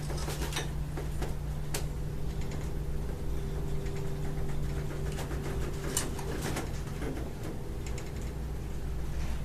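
Ship's cabin in a storm: a steady low hum of the ship, with a long drawn-out creak from about two seconds in to near the end and a few sharp knocks and rattles as fittings work with the rolling.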